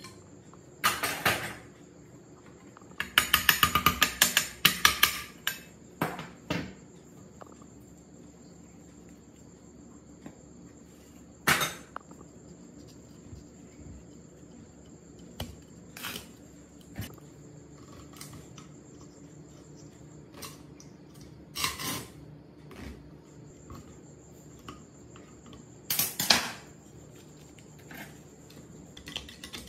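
Metal tools and parts of an old rusty electric water pump knocking and clinking on a work surface: a handful of separate sharp knocks, with a quick rattling run of taps a few seconds in. A faint steady high whine runs under it.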